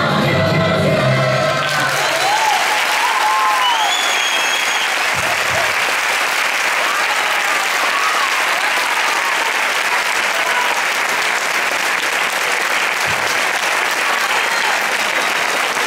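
Sung ensemble music ends about a second and a half in, giving way to loud, sustained audience applause with a few whoops near the start.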